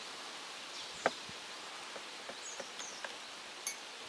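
Quiet outdoor ambience: a steady hiss with scattered faint clicks, and two short, high, falling bird chirps about two and a half seconds in.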